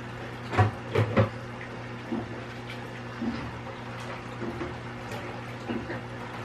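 Kitchen handling sounds while hot water is fetched: three knocks, like a cupboard or dishes, about a second in, then faint clinks over a steady low hum.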